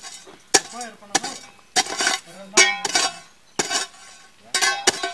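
Steel hoe blade chopping into stony, gravelly soil, about eight sharp strikes spaced unevenly half a second to a second apart, each with a brief metallic ring.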